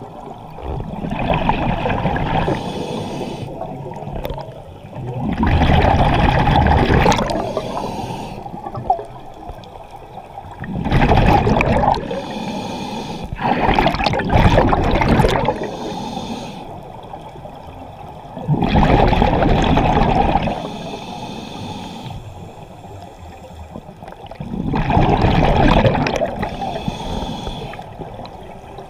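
Scuba diver breathing underwater through a regulator: six gurgling surges of exhaled bubbles rush past the microphone at an uneven breathing pace, with a quieter wash of water between them.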